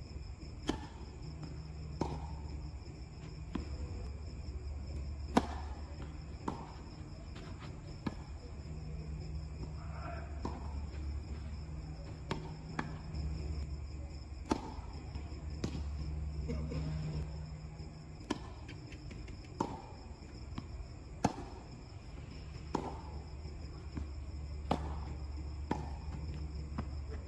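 Tennis balls being hit by racquets and bouncing on the court during a doubles rally: sharp pops roughly every one to one and a half seconds, over a steady low hum.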